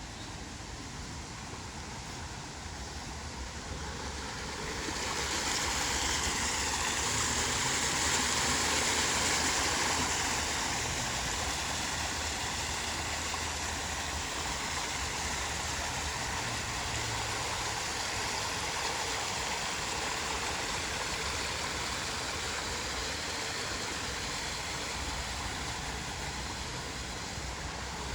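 Water pouring over a man-made waterfall and tumbling down a string of smaller falls into ponds: a steady rush that grows louder about five seconds in, then eases a little and holds.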